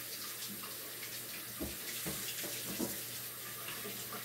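Kitchen tap running steadily into a stainless steel sink during hand dish-washing, with a few light knocks as items are handled in the sink.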